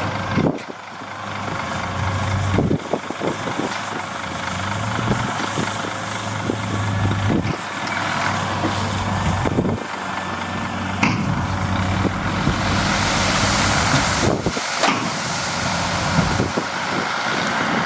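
Heavy diesel engine of construction machinery running, its pitch shifting as it works, with occasional sharp knocks.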